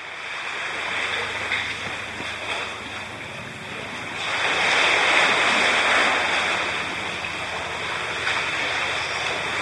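Sea water sloshing and lapping against the rock walls of a narrow cleft as a steady wash of noise that swells about four seconds in and then eases.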